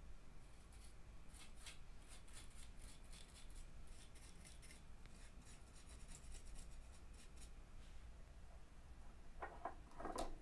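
Faint, quick scratching and rubbing as a cyanoacrylate glue activator applicator is drawn along the glued joints of wooden rack shelves, followed by a few louder knocks near the end.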